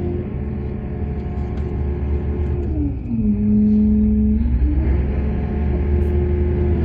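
Heavy diesel engine of mining machinery running. About three seconds in, its pitch drops, holds low for a second or so, then rises back, as under a passing load.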